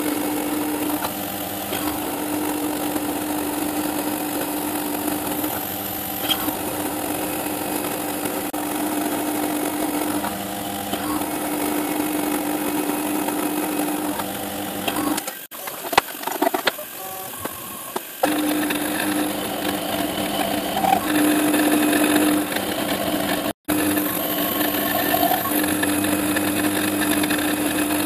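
Modified Axminster CNC milling machine drilling holes through 10 mm aluminium plate: the spindle runs with a steady hum while the drill cuts. The sound drops away for a few seconds about halfway through and cuts out for an instant later on.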